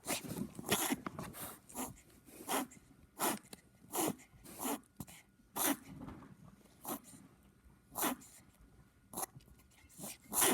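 Morkie puppy reverse sneezing: a series of sharp, forceful snorting breaths drawn in fast through the nose, roughly one a second. This is a spasm of the throat set off by irritation of the soft palate.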